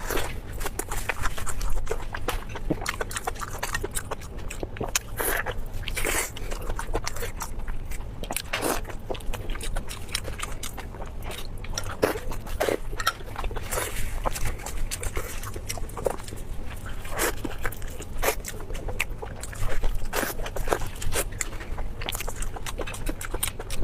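A person chewing and smacking food close to the microphone, with irregular wet clicks and bites over a steady low hum.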